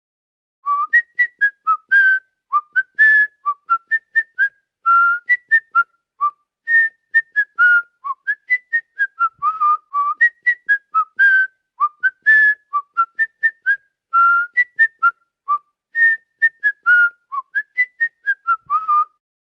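Whistling: a quick, jumpy run of short separate notes, mostly high and hopping up and down in pitch, with brief pauses between phrases. It starts just after the beginning and stops shortly before the end.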